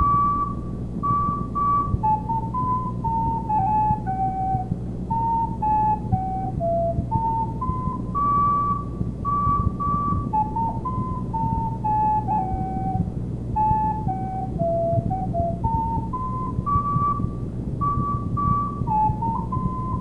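Solo recorder playing a single-line melody of short, clear notes that step up and down in repeating phrases, over a steady low hum.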